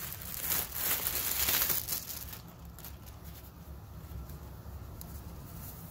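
Clear plastic polybag crinkling as a T-shirt is pulled out of it, loudest for about the first two seconds, then softer rustling while the shirt is unfolded.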